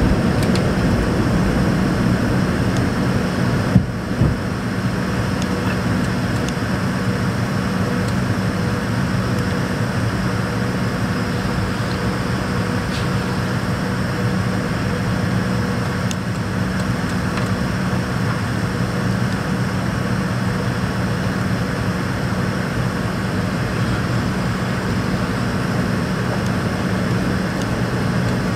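Cabin noise of a McDonnell Douglas MD-88 in its initial climb just after takeoff: the steady drone of its rear-mounted Pratt & Whitney JT8D turbofans and rushing air, with a low hum. A single thump comes about four seconds in, after which the noise is slightly lower.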